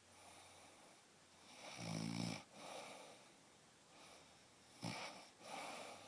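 Snoring in sleep: a rattling snore about two seconds in, then a shorter, sharper snort near five seconds, each followed by a softer noisy breath out.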